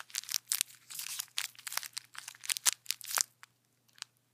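Thin clear plastic bag crinkling and crackling as fingers handle it. The bag holds flatback pearls. The crinkling is dense for about three seconds, then mostly stops, with one small crackle near the end.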